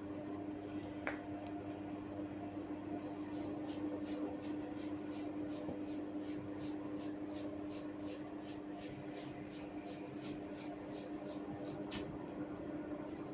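Hair cracking during a head massage: a regular run of short, crisp crackling strokes, about three a second, as tufts of hair are tugged and rubbed, starting about three seconds in. A single sharper snap comes near the end.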